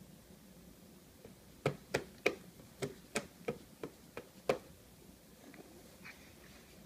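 A toddler's hands slapping a plastic high-chair tray: about eight sharp slaps in quick, slightly uneven succession over about three seconds, starting about a second and a half in.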